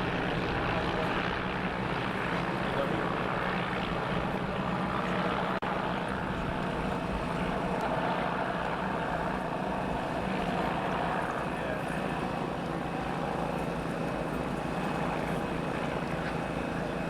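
Propeller aircraft engine running at a steady pitch.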